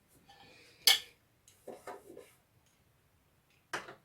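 Microwave turntable parts being fitted into the oven cavity: a sharp clack about a second in, a few light clicks and rattles, and another clack near the end.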